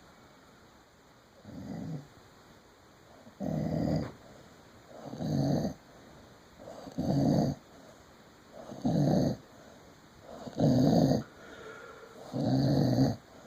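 Snoring in a slow, even rhythm: seven snores about two seconds apart, the first faint and the rest louder.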